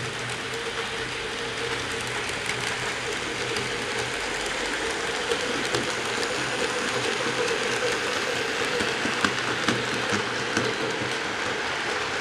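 HO scale model steam locomotive running past, its motor and gears whirring with a steady whine, pulling a train of model boxcars. Sharp clicks from the wheels rolling over the track come in the second half.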